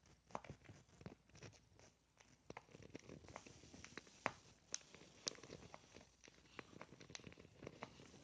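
Faint, irregular clicking and crunching of cockatiels pecking at and husking seeds.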